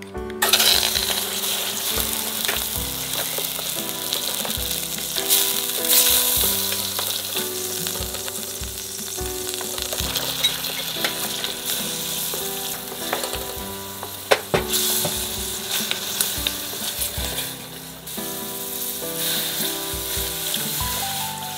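Oysters and minced garlic sizzling in hot oil in a hammered aluminium pot, stirred with a spatula that knocks against the pot a few times. Near the end, water is poured into the pot.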